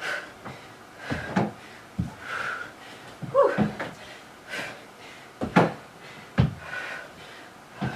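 Feet stepping up onto a workout box and lunging back to the floor, making repeated thuds about once a second, with hard breathing between them and a brief vocal sound about three seconds in.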